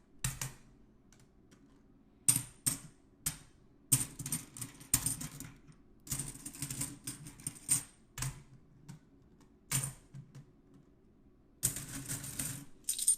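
Silver Franklin half dollars clicking and clinking together as they are handled, in scattered single clicks and short rattling clusters, some with a brief bright metallic ring.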